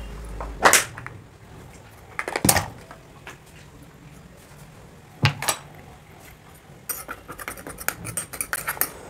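Metal spatula knocking and scraping against porcelain dishes while ammonium chloride powder is spooned in and mixed with salt. There are three separate knocks in the first half, then a quick run of small clinks and scrapes for the last two seconds or so.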